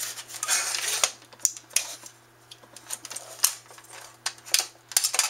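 Plastic clips and metal parts of a CD-ROM drive clicking and rattling as it is pried apart by hand. A scraping rustle comes in the first second, then a run of sharp, irregular clicks.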